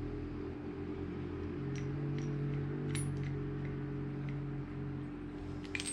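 Small steel parts of a pipe vise clinking lightly as they are handled and fitted, a few faint clicks through the middle and a quick run of sharper clinks near the end, over a steady low drone.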